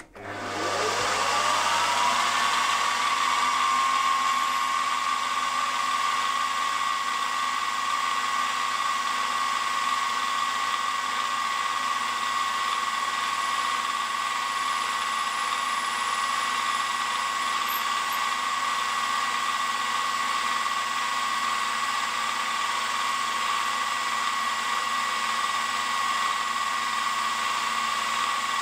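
Milling machine spindle starting up with a rising whine about a second in, then running at a steady high-pitched whine while an eighth-inch twist drill cuts a clearance hole down through an aluminium connecting-rod cap.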